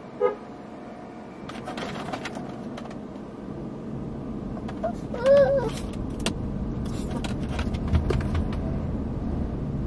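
Small dog whining once, a short whimper that rises and falls, about five seconds in, over the steady hum of the parked car's running engine and air conditioning. Light knocks and rustles come and go.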